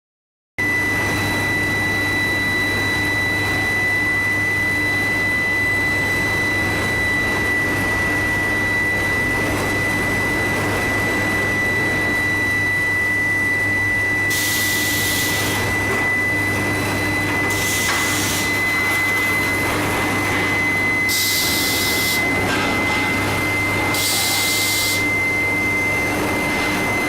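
Induction billet heating furnace running: a steady, high single-pitched whine from the induction coil over a constant electrical hum. Four short bursts of hiss break in over the second half.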